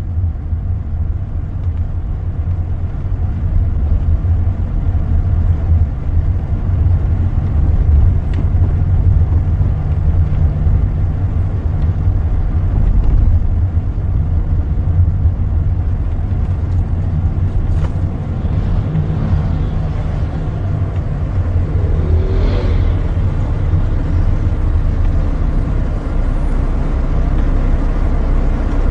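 Road and engine noise inside a moving car's cabin: a steady low rumble throughout.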